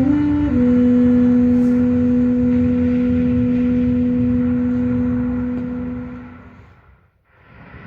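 Alto saxophone holding one long low note over a low, hazy backing track, at the end of a descending line. The note and the backing fade away almost to nothing about seven seconds in, and a new note begins right at the end.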